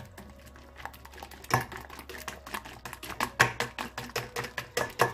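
Whisk with orange silicone wires beating egg yolk into whipped egg whites in a stainless steel bowl: rapid, uneven clicking and tapping on the metal, sparse at first and getting busier and louder after about a second and a half.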